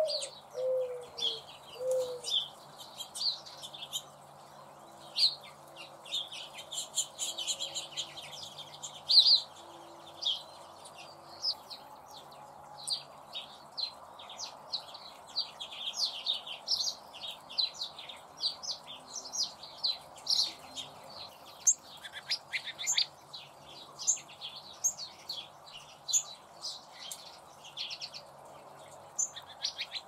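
Small birds chirping constantly in quick, overlapping short chirps. In the first two seconds a mourning dove coos: a rising note and then a few low falling ones.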